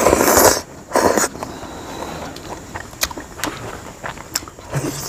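Noodles slurped from a plate held to the mouth: two loud slurps, the first at the start and a shorter one about a second in, then quieter chewing with a few light clicks.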